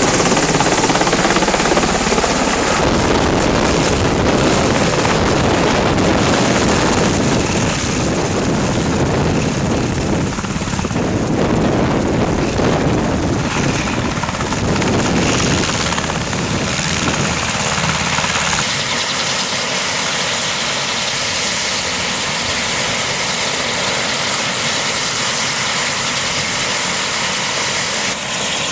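UH-60 Black Hawk helicopter's rotor and turbine engines, loud and rushing as it comes in low overhead and sets down. About two-thirds of the way in, the deep rumble falls away and it settles into steadier running with the rotor still turning on the ground.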